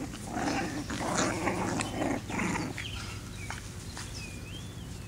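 Five-week-old English bulldog puppies vocalizing in a run of rough, noisy sounds for about the first two and a half seconds, then quieter with a few clicks.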